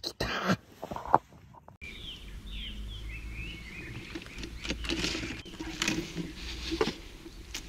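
Outdoor bank ambience. A few sharp clicks in the first two seconds, then a low wind rumble with brief bird chirps and scattered knocks and rustles as fishing gear is handled.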